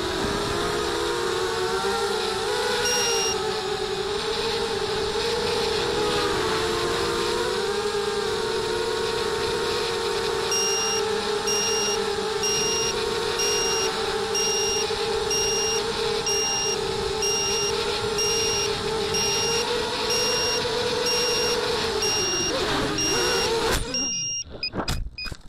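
ZMR250 racing quadcopter's 2300 kV brushless motors and 5-inch propellers whining steadily, recorded on board, pitch wavering with throttle in fast low flight. From about ten seconds in a high beep repeats roughly one and a half times a second. Near the end the whine dips and breaks up in a crash, then cuts out.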